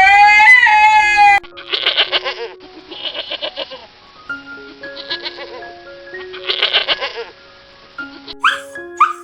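Goats bleating over light background music: a loud, drawn-out, wavering bleat in the first second and a half, then several shorter quavering bleats. Short high rising yelps come near the end.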